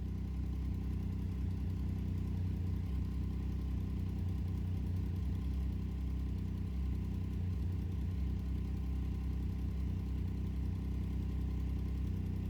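Triumph Street Triple 675R's three-cylinder engine idling steadily while it warms up, so that air can be bled out of the cooling system.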